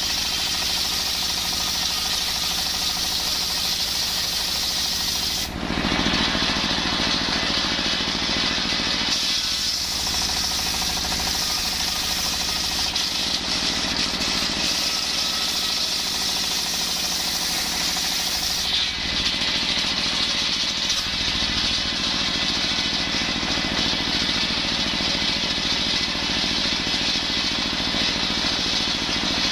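Engine-driven circular saw bench ripping coconut wood: the blade's steady high-pitched cutting noise over the continuous running of the stationary diesel engine that drives it. The cutting sound changes character about five seconds in and again near nineteen seconds as the plank moves through the blade.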